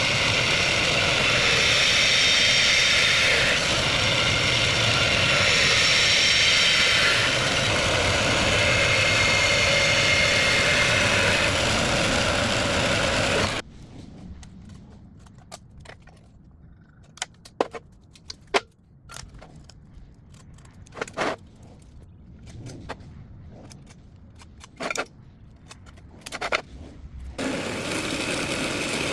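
Power tool cutting and grinding steel, a loud steady hissing whine; about halfway through it stops suddenly, leaving scattered sharp clicks and knocks until the loud tool noise comes back near the end.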